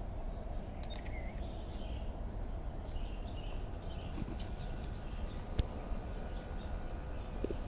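Outdoor ambience: a steady low rumble with small birds chirping in short calls throughout, and a single sharp click about five and a half seconds in.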